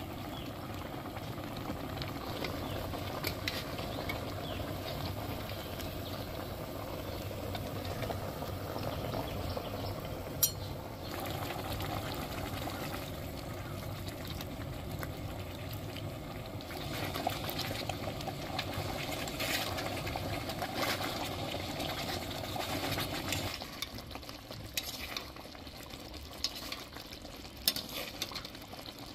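Pork ribs in a sauce bubbling steadily in a steel wok, with a pale liquid poured in from a bowl partway through. A utensil clicks against the wok a few times, and about 24 s in the bubbling turns quieter and sparser as the sauce thickens.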